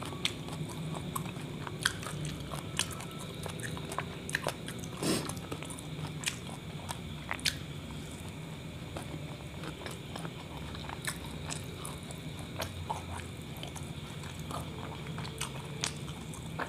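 Close-up chewing and biting of a kebab wrap, with many small wet clicks and crunches from the mouth at irregular moments over a steady low hum.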